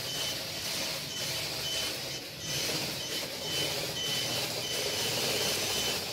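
Faint high-pitched electronic beeping, about two short beeps a second, over a steady noisy hum from a small home-built pill-delivery robot standing at the bedside.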